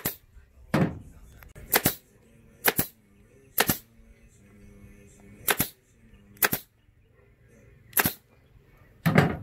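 Pneumatic staple gun firing staples through thick gator-skin vinyl into a seat base, about nine sharp single shots roughly a second apart at an uneven pace.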